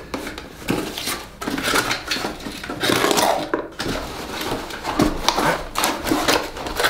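Cardboard packaging being handled and opened: a box's end flap pulled open and papers inside rustling and crinkling, with irregular light knocks and scrapes of the box on a wooden tabletop.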